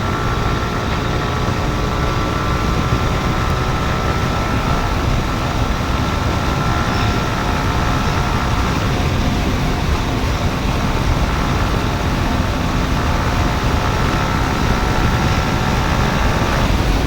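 Yamaha R15 V4's 155 cc single-cylinder engine running at a steady cruising pitch while the bike is ridden along an open road, heard under a dense rush of wind and road noise.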